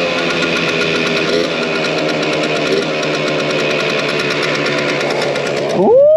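Small motorbike engine of a 180cc project bike running at high, fairly steady revs while riding, with a fast pulsing beat. Near the end the pitch rises sharply.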